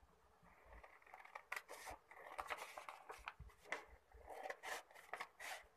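A large pair of scissors cutting through a sheet of thin colour paper in a run of quick snips, with the paper crackling. It starts about half a second in.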